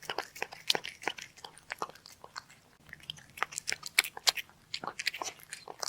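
Crunchy chewing: something being bitten and crunched in quick, irregular crunches.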